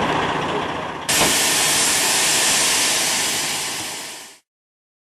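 Steady hissing outdoor street noise, louder and brighter after a sudden jump about a second in, then fading out to dead silence just past four seconds.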